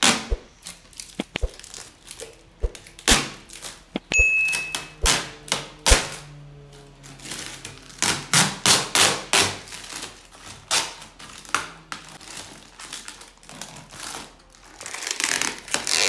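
Clear plastic protective film crackling and crinkling as it is peeled off a stainless steel refrigerator door, in irregular sharp snaps and rustles. A brief high beep sounds about four seconds in.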